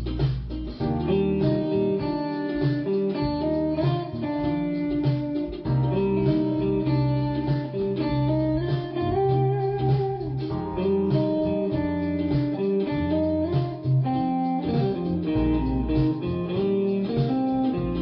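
Background music: a guitar instrumental with plucked, blues-flavoured lines over a bass part.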